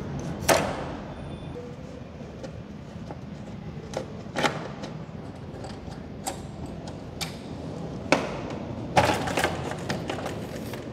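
Plastic fairing panels of a KTM RC 200 motorcycle being pried and pulled off the frame: irregular clicks and knocks of plastic on metal, with a cluster of louder knocks about nine seconds in.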